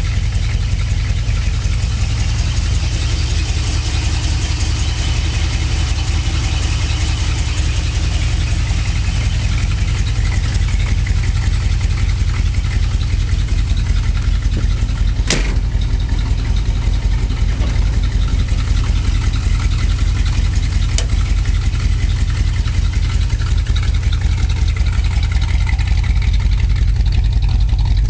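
1962 Ford Thunderbird's 390 V8 idling steadily, with one sharp click about halfway through.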